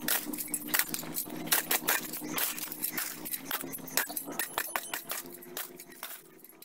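A metal shovel digging into dry, gravelly soil: repeated scraping and crunching strokes of the blade, with loose earth and pebbles spilling. The strokes thin out near the end.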